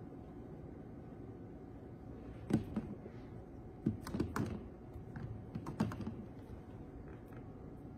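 A handful of light, scattered taps and knocks from painting supplies being handled at a table, starting about two and a half seconds in, over a steady low room hum.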